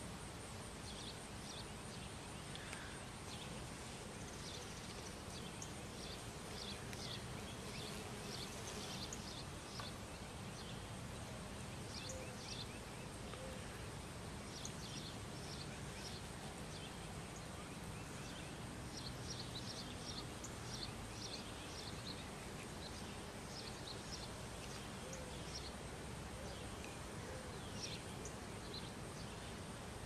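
Faint outdoor summer ambience: a steady, thin high-pitched trill, with repeated bursts of quick chirps every few seconds.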